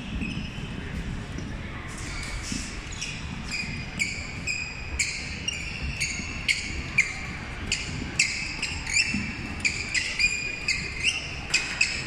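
Badminton court shoes squeaking on a wooden sports-hall floor, many short sharp squeaks mixed with racket hits on shuttlecocks, coming more thickly in the second half.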